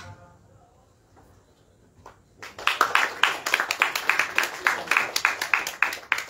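The trailer's music dies away faintly, then about two and a half seconds in a room audience breaks into applause, many hands clapping.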